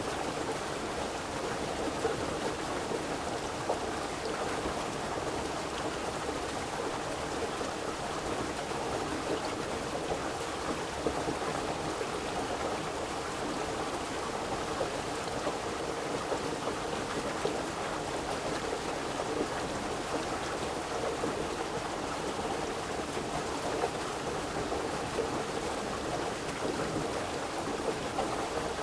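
River water flowing steadily, an even rushing sound with small splashes.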